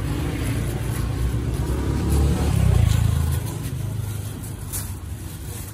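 Low rumble of a motor vehicle passing on the street, swelling to its loudest about halfway through and then fading.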